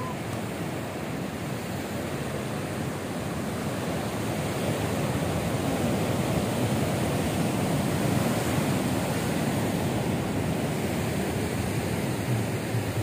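Ocean surf: a steady rush of breaking waves that swells louder through the middle of the stretch.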